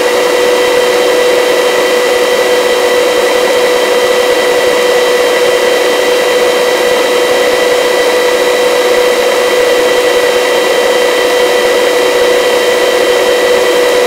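Helicopter in flight: steady turbine and rotor noise with a strong, unchanging whine over a constant rush.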